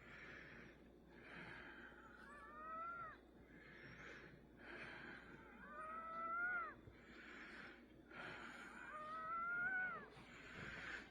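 Faint wheezing breathing: a rasping breath about every second, and on every third breath or so a whistling tone that rises and falls, three times.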